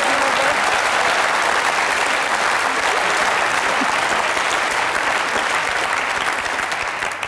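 Studio audience applauding, fading away near the end.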